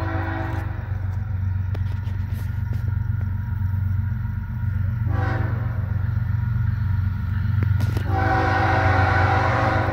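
Florida East Coast Railway freight locomotive sounding its air horn as it approaches. A chord ends just after the start, a short blast comes about 5 s in, and a long blast starts about 8 s in, the tail of the grade-crossing sequence. Under the horn is the train's low rumble.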